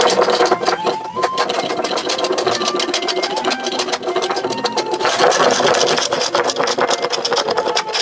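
Wooden hand plane shaving the trunk of a palm log in rapid, repeated short strokes, over background music.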